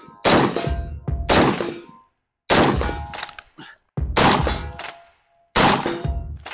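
IWI Galil ACE Gen II rifle in 7.62x39 firing five single shots, spaced about a second to a second and a half apart, each followed by a metallic clang and ring as the bullet strikes a steel target.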